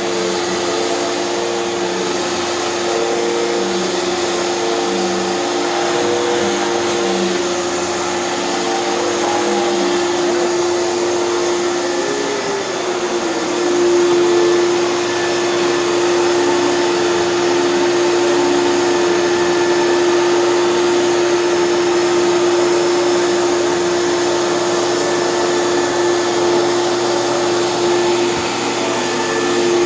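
Hoover canister vacuum cleaner running steadily, a motor hum over a rushing airflow; about twelve seconds in its pitch dips briefly and then settles.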